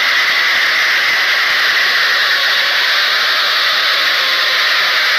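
A large crowd of spectators shouting and cheering at a bullock cart race, merged into a steady, even hiss-like roar.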